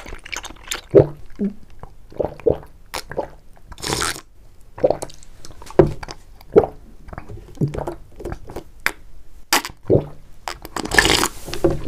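Repeated gulping swallows as milk tea is drunk straight from a large glass bowl, about one swallow a second, with a longer noisy burst near the end.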